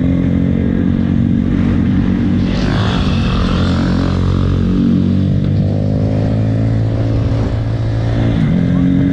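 Motorcycle engine running steadily, heard from on board the bike. Between about two and a half and four seconds in, a second motorcycle's higher engine note rises and falls as it comes alongside.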